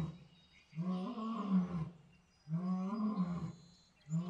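Lion roaring: three long calls about a second each, evenly spaced, the third cut off at the end.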